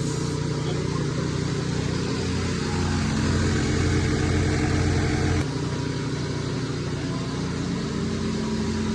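An engine running steadily. It gets louder for a couple of seconds in the middle, then drops back suddenly about five and a half seconds in.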